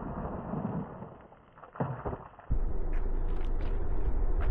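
The echo of a 10mm pistol shot dies away over about a second. A duller single thump follows near the two-second mark. Partway through, the sound gives way abruptly to a steady low outdoor rumble, like wind on the microphone, with a few faint ticks.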